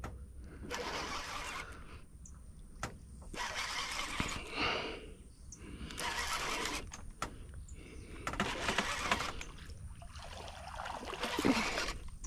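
A person breathing close to the microphone, a noisy breath about every two to three seconds, with a few faint clicks between breaths.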